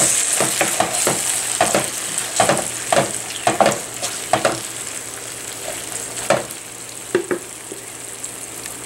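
Sliced capsicum and onions sizzling in chilli sauce and ketchup in a non-stick pan, stirred with a wooden spatula. Its strokes scrape the pan about twice a second, then thin out to a few after about four and a half seconds, leaving the steady sizzle.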